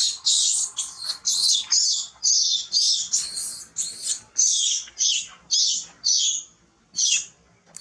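Monkey giving a rapid string of shrill, high-pitched distress calls, about three a second, which break off about six and a half seconds in with one more call near the end.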